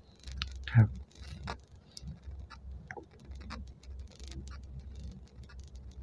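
Fingers handling and turning a small gold-plated metal amulet figurine close to the microphone, giving scattered soft clicks and rubbing. A louder brief sound, falling in pitch, comes about a second in.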